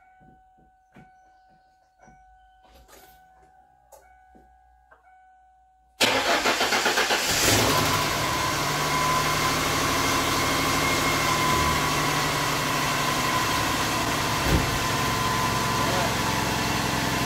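After about six seconds of faint clicks, a 1996 Ford Mustang's freshly swapped engine cranks briefly, catches and settles into a steady idle with a steady whine over it. It is being started to circulate antifreeze and bleed the newly filled cooling system.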